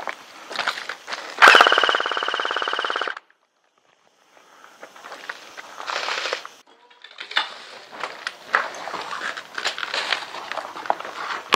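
Airsoft electric gun firing one full-auto burst of under two seconds: a fast, even rattle of shots over a steady gearbox whine. The burst cuts off sharply. Scattered clicks and rustling follow later.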